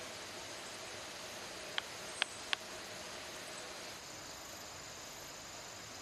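Quiet outdoor ambience: a steady hiss with high insect buzzing, and three short sharp ticks in quick succession about two seconds in.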